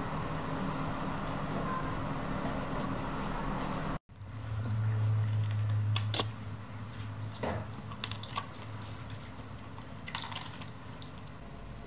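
A cat pawing and nosing dry treats out of the green plastic cups of a puzzle feeder: scattered clicks, rattles and scrapes of kibble and plastic over a low hum.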